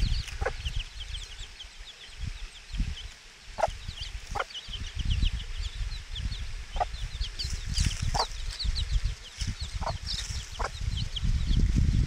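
Week-old chicks peeping continuously in short, high, falling chirps, and a mother hen giving short low clucks about every second or two as she forages beside them.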